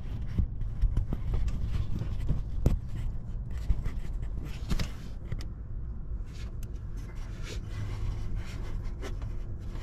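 Steady low rumble with scattered light clicks and rubbing: handling noise on a handheld microphone.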